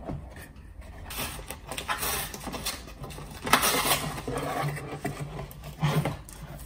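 A cardboard delivery box being torn open along its tear strip and its flaps pulled apart, then a plastic-wrapped box is handled: a series of irregular tearing, rustling and crinkling bursts.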